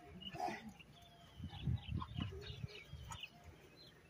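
Dog growling in a few short, low bursts in the middle while tugging on a rope toy. Small birds chirp throughout.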